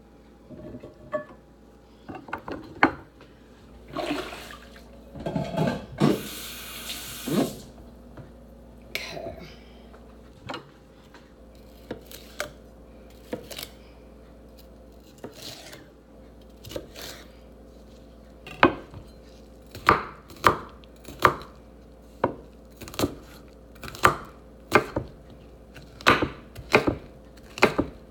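Chef's knife chopping a yellow pepper on a wooden cutting board. There are scattered cuts and knocks at first, then a steady dicing rhythm of one to two strokes a second through the second half. A short hiss comes about six seconds in.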